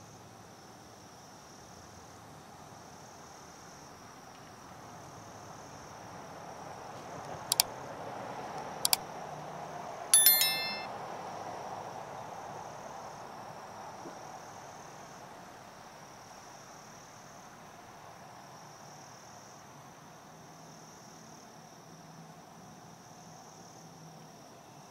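Two sharp clicks and then a bell ding, about 7.5, 9 and 10 seconds in: the sound effects of a subscribe-button overlay animation. They are laid over a steady high buzz of insects in the woods.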